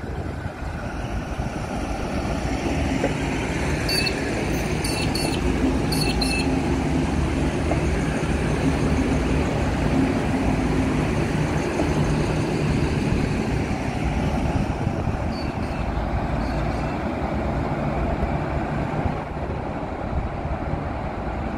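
V/Line VLocity diesel multiple unit running close by: the steady drone of its underfloor diesel engines with wheel rumble on the track. A few brief high squeaks come about four to six seconds in.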